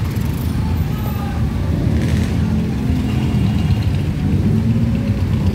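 Steady low rumble of street traffic, with the engines of a passenger jeepney and motorcycles passing close.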